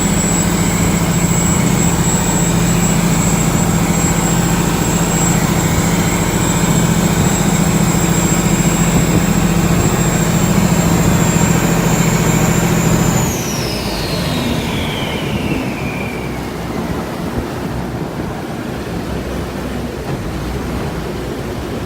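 Canal boat's engine running hard with a steady drone and a high whine, then throttled back about 13 seconds in: the whine slides down in pitch over a few seconds and the engine drone drops away, leaving the rush of water and wind.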